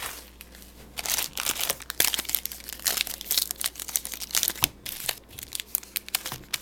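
A sports-card pack wrapper being torn open and crinkled in the hands: a quiet moment, then from about a second in a dense run of crackling and tearing.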